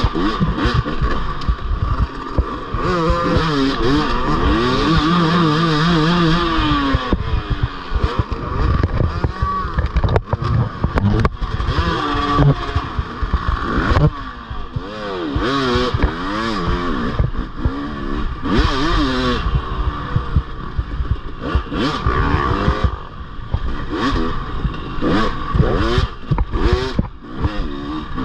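Dirt bike engine revving up and down over and over as it is ridden hard, with frequent knocks and clatter from the ride over rough ground.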